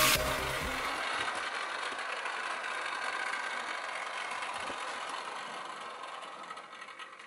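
OO gauge model electric train running on its track: a steady whirr of the small motor and wheels on the rails that fades slowly as the train runs on.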